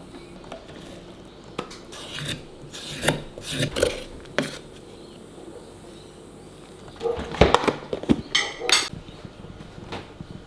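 A utensil scraping and knocking against a bowl while thick, half-frozen ice cream mixture is scooped out of the ice cream machine. Scattered clinks and scrapes come through the first half, then a quicker cluster of knocks about seven seconds in.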